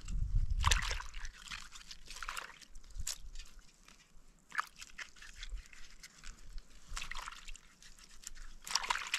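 Hands washing and peeling wild plant stalks in a shallow pan of water: irregular small splashes and sloshing.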